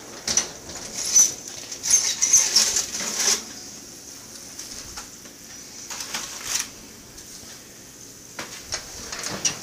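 Metal oven rack sliding out and a disposable aluminium foil pan rattling and scraping as it is lifted out of the oven and set down on the stovetop: a cluster of clatters and knocks over the first few seconds, then a few lighter clicks.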